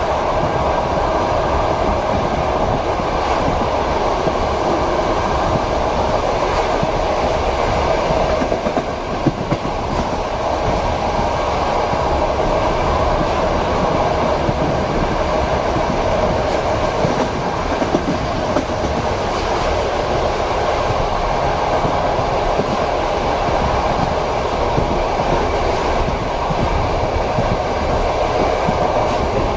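Passenger train running steadily, heard from inside a compartment: a continuous rumble with the clickety-clack of the wheels knocking over rail joints.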